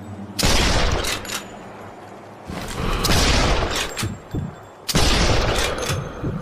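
Mosin-Nagant bolt-action rifle firing three shots about two and a half seconds apart, each with a long trailing echo. Quieter sharp clicks come between the shots.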